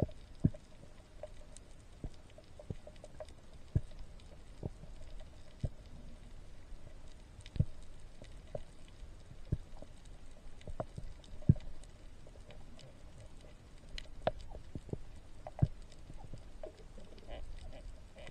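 Muffled underwater ambience heard through an action camera's waterproof housing, with irregular sharp clicks and knocks about once or twice a second, a few of them louder.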